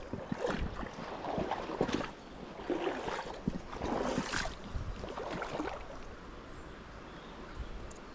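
Shallow river water running and sloshing, with irregular splashes and knocks over the first six seconds, then a steadier, fainter run of water.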